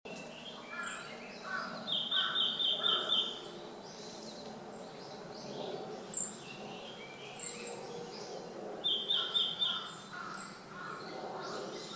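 Red-billed leiothrix giving loud, shrill calls: a quick run of about six notes around two seconds in and another around nine seconds in, with lower repeated notes between them and a few short, very high squeaks.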